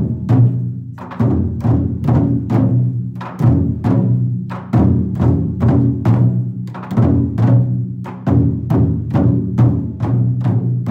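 Several chū-daiko taiko drums on slanted stands struck with wooden bachi in a steady ensemble pattern, each stroke ringing low and fading before the next.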